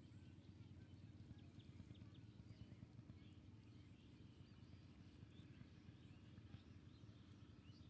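Near silence: faint outdoor ambience with a low steady rumble and a few faint, short high chirps scattered through.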